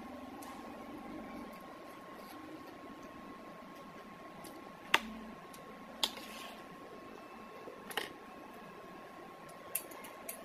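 Metal fork and spoon clinking against a ceramic plate and mug while eating, a few sharp single clinks a second or two apart, the loudest about five seconds in. A steady faint hum runs underneath.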